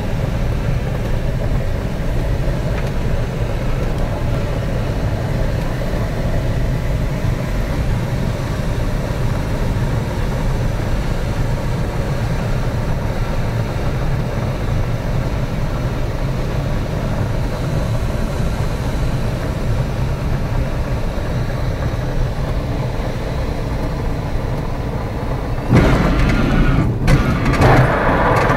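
Steady wind noise of airflow around the cockpit of a Schleicher K-21 glider gliding in on approach, with no engine. Near the end it turns suddenly louder and rougher, a rumbling with rattles, as the glider touches down and rolls on grass.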